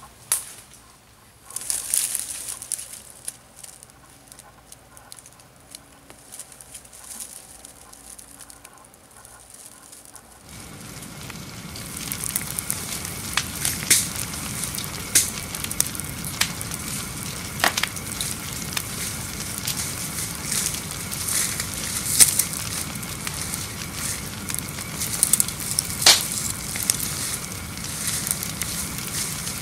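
A fire of dry palm fronds and bamboo burning, crackling steadily with frequent sharp pops; it starts about a third of the way in and grows louder. Before it, a few short knocks and rustles.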